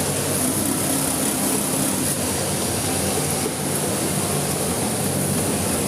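A steady mechanical hum under a constant hiss, unchanging throughout.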